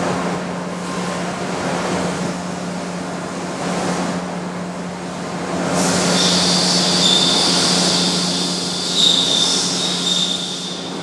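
OD grinder running, its motor giving a steady hum; about six seconds in, a high-pitched hissing whine joins and holds for about five seconds.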